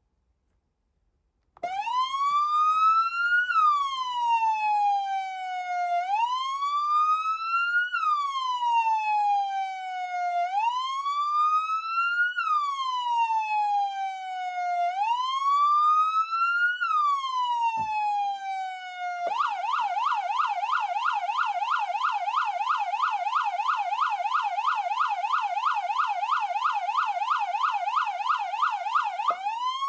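Code 3 H2Covert electronic siren amplifier sounding its wail tone, which starts about a second and a half in, rising and falling slowly about every four and a half seconds. About 19 seconds in it switches to the fast yelp, several quick up-and-down sweeps a second, and near the end it goes back to a slow wail.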